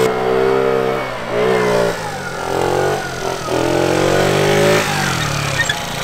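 Small scooter engine revving up and easing off in about four surges, its pitch climbing with the throttle and dropping back each time, as the rider balances the scooter on its back wheel in a wheelie.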